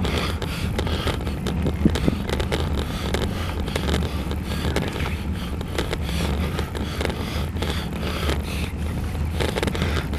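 Wind buffeting the microphone of a camera mounted on a bicycle climbing a road, with a steady low rumble and frequent small rattles and knocks from road vibration.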